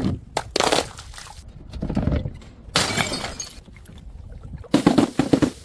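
Glass bottles smashing and shattering in several separate breaks: sharp cracks under a second in, another burst about three seconds in, and a quick cluster of cracks near the end.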